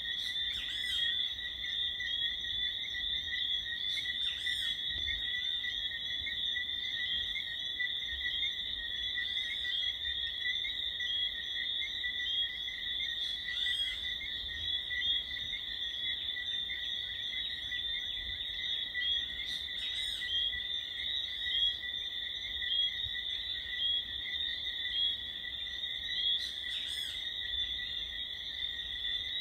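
Chorus of Bermuda tree frogs (whistling frogs) calling continuously in a steady high shrill of overlapping whistles, with single louder chirping calls standing out every few seconds.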